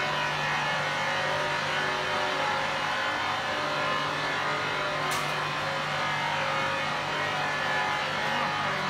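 RB-1300 vacuum emulsifier mixer running: a steady electric-motor hum with a whine held at one pitch. A brief sharp tick about five seconds in.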